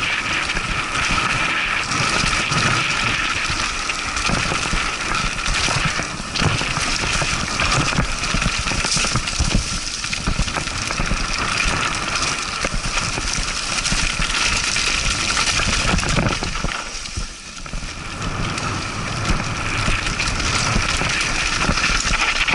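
Mountain bike descending a rough dirt singletrack at speed: a steady rush of wind on the microphone and tyres on dirt and dry leaves, with constant rattling and knocks from the bike over stones and roots. It eases briefly about 17 seconds in.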